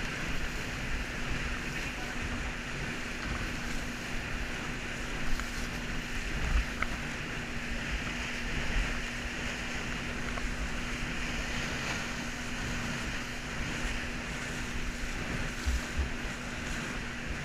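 Wind buffeting an action camera's microphone and sea water rushing past a flying-fish inflatable towed at speed, with a steady low drone from the tow boat's engine.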